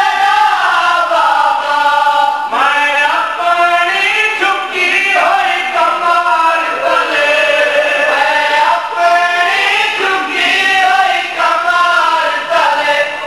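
Men chanting a mournful lament (noha) through a microphone, a lead voice with others joining in long, drawn-out sung lines.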